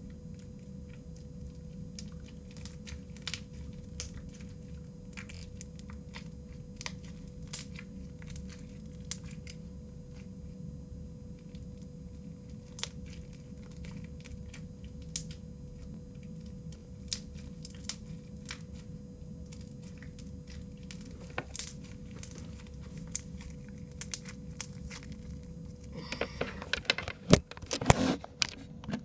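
Crunchy slime with beads being kneaded and squeezed by hand: scattered small crackles and pops, with a louder flurry of them near the end.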